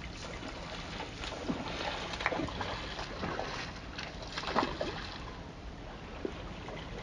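Steady rush of river water and wind, with a run of short wet smacking and crunching sounds between about one and five seconds in: a brown bear chewing a freshly caught salmon.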